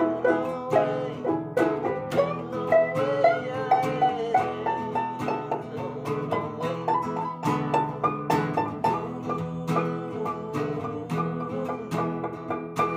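A small banjo and an acoustic guitar played together, the banjo's quick plucked notes over the guitar's strumming.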